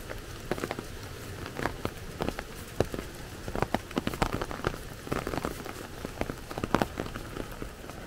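Heavy rain falling on an umbrella held over the microphone: a steady hiss with many irregular sharp taps of drops striking the canopy.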